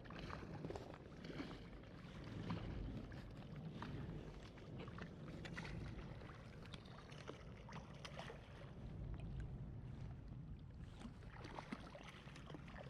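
Water sloshing and splashing, with a steady low rumble and many small scattered ticks and clicks.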